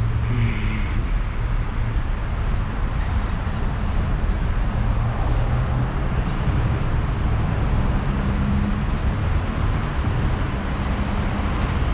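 Steady low engine drone with a constant hum under it, the sound of motor vehicles on a street.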